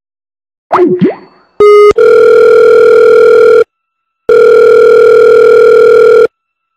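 Telephone line tones: a short beep, then two long steady tones of about two seconds each with a brief gap between them. They come just after a quick gliding, sweeping sound.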